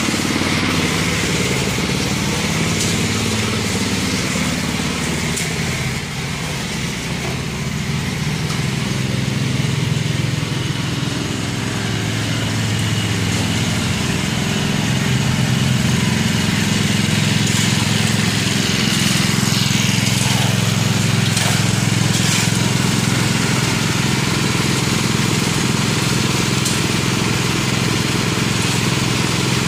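Small gasoline engine of a gold-drum trommel running steadily, with water splashing through the drum and classifier.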